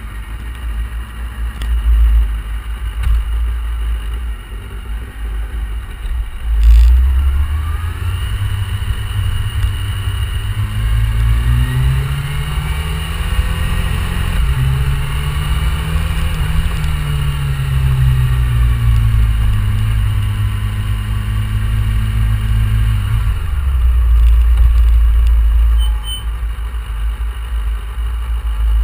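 Motorcycle engine running as the bike rides slowly, its pitch rising as it speeds up and falling away as it slows, over a constant low rumble. A single sharp clunk comes about seven seconds in.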